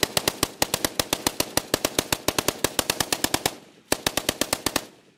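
K-57 light machine gun firing on full auto at about ten shots a second: a long burst of about three and a half seconds, a brief pause, then a shorter burst of about one second.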